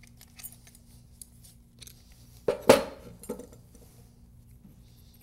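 Metal PEX fittings clinking and ticking against the brass body of a water pressure regulator as they are handled and threaded on by hand, with a louder pair of clinks about two and a half seconds in.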